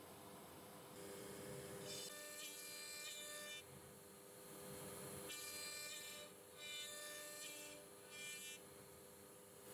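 CNC router spindle running with a steady whine while its bit carves MDF, the cutting buzz rising in passes of a second or two, about three times.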